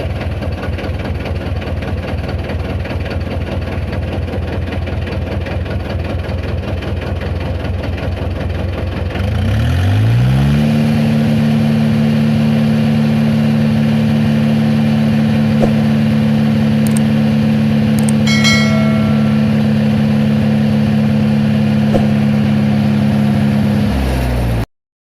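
Tractor engine idling, then revved up over about a second roughly halfway through and held at a steady higher speed, before cutting off abruptly near the end.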